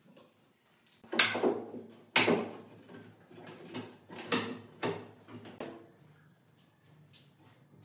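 Wooden kitchen cabinet drawers and doors being opened and closed: a string of knocks and short sliding rumbles, the loudest about a second in and just after two seconds, with more around four to five seconds in.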